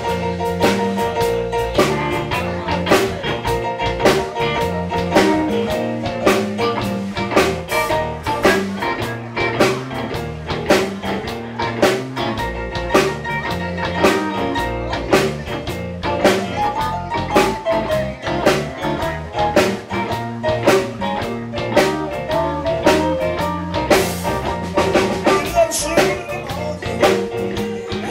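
Live blues band playing, a drum kit keeping a steady beat under electric guitar.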